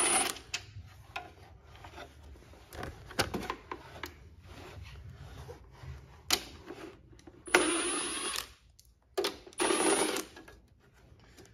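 A small power driver with a 7mm socket backs out the headlight housing bolts in short whirring runs: one at the start and two more near the end, with scattered clicks and knocks of tool and parts in between.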